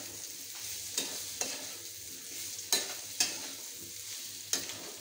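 Halved boiled baby potatoes frying in oil with spices in a wok, sizzling steadily while a spatula stirs them, scraping and knocking against the pan about five times. The potatoes are being roasted until crisp so they don't turn sticky.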